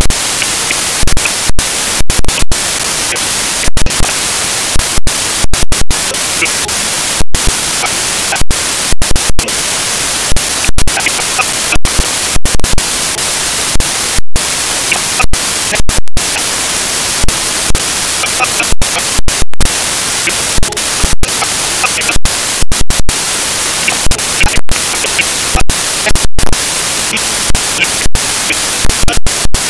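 Loud, steady white-noise hiss of corrupted audio, broken many times at irregular intervals by brief cut-outs and sudden louder peaks.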